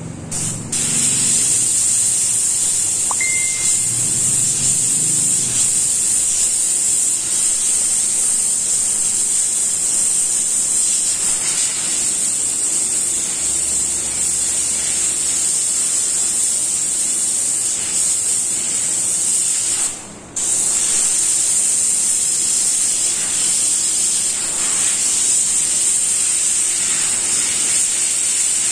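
Gravity-feed airbrush spraying paint with a steady high-pitched hiss of air, starting about half a second in and cutting out once for about half a second about two-thirds of the way through.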